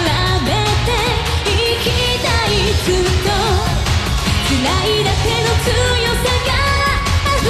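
A woman singing a J-pop song live into a handheld microphone, backed by a full band with electric guitars, in one continuous sung phrase with held notes and vibrato.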